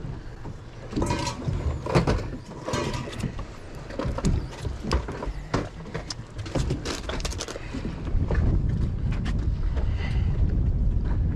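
Clicks and clinks of fishing tackle being handled: a knife-style metal jig with its hooks and rings being unclipped and tied on. Underneath is a steady low rumble of wind and water, which grows louder about eight seconds in.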